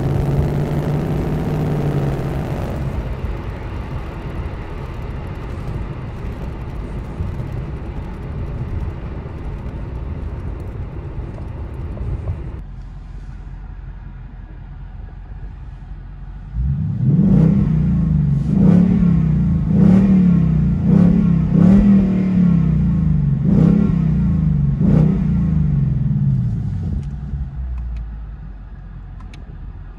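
Ford Mustang GT 5.0 V8 idling, its idle speed dropping about three seconds in and the exhaust getting quieter around the middle. It is then revved in a quick series of about seven throttle blips before settling back to idle near the end.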